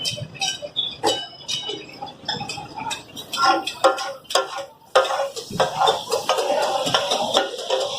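Metal spatulas striking and chopping on a flat iron tawa griddle, an irregular clatter of several ringing metallic hits a second: the katakat chopping of offal on the griddle.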